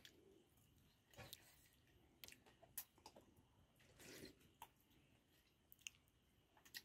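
Near silence: quiet room tone with a few faint, scattered clicks and soft smacks.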